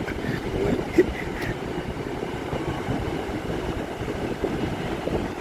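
Strong wind buffeting the microphone, a steady, uneven rumble with the wash of the sea underneath.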